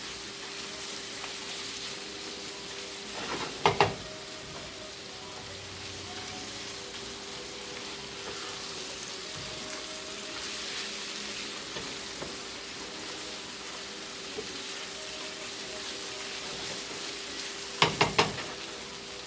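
Chicken pieces with onion, carrots, celery and garlic sizzling steadily as they fry in oil and butter in a pan. There are a couple of brief knocks, about three and a half seconds in and again near the end.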